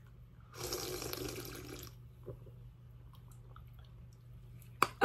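Soda can opened with a hiss of escaping carbonation, fizzing for about a second and then fading.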